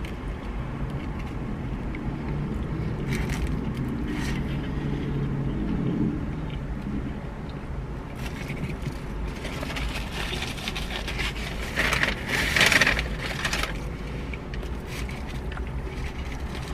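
A person chewing a mouthful of stuffed quesadilla taco, with aluminium foil wrapper crinkling loudest about ten to thirteen seconds in, over a steady low hum in a car cabin.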